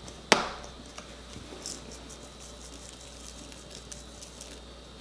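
One sharp knock a third of a second in, the loudest thing here, then a scatter of faint light ticks through the middle as a Tajín chili-lime seasoning bottle is shaken over a plastic container of shrimp.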